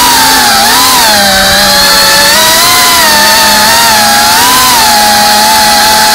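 FPV racing quadcopter's brushless motors and propellers buzzing, heard through its onboard camera with rushing air noise. The pitch rises and dips with throttle changes as it manoeuvres, settling to a steadier tone after about five seconds.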